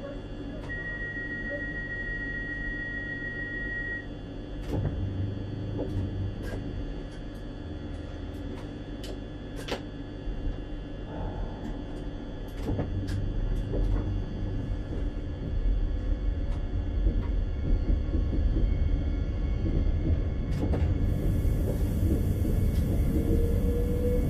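Regio 2n (Z 57000) electric train heard from the cab: a steady high beep for about three seconds, then a series of sharp clicks and knocks, then a low rumble that builds as the train gets moving, with the traction motors' whine rising in pitch near the end.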